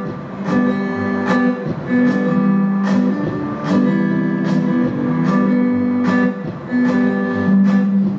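Instrumental passage of a recorded song: acoustic guitar strumming chords, about two strokes a second.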